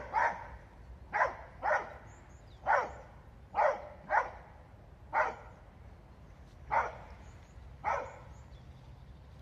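A dog barking repeatedly: about ten short barks spread over nine seconds, several coming in quick pairs.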